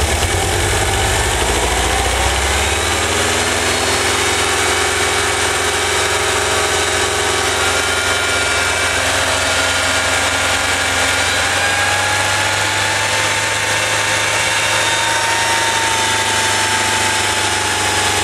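VW Vanagon 1.9 L water-cooled flat-four (wasserboxer) engine idling, then revving up nice and smooth about two to three seconds in as the throttle is opened, and holding at raised speed. With the vacuum advance disconnected and plugged, it takes throttle without stalling.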